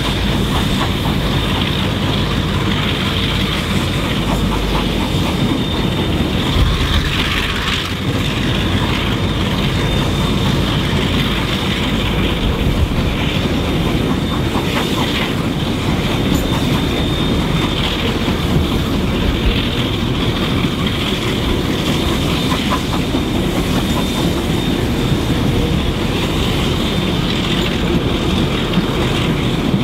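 Passenger carriages running on the rails: steady wheel and running-gear noise with frequent clicks from the wheels over rail joints.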